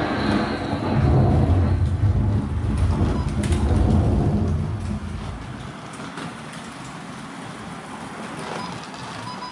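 Thunderstorm sound effect: a deep rolling thunder rumble that fades after about five seconds, over a steady hiss of rain.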